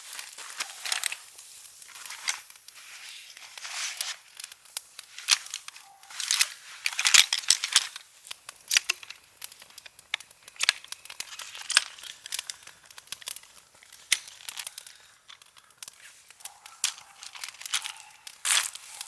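Crinkling and rustling of a wrapper or bag being handled, with irregular sharp crackles throughout.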